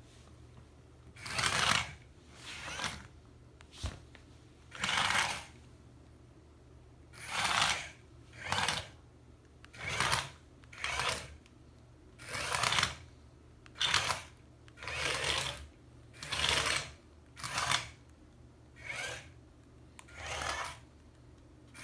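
Small robot's DC gear motors running in short spurts, about fourteen whirs of roughly half a second each with pauses between, as the robot drives in response to remote-control commands.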